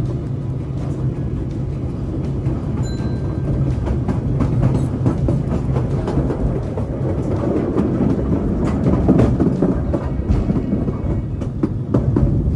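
Kurobe Gorge Railway narrow-gauge train running, heard from on board: a steady rumble of wheels on the track with frequent rattling clicks.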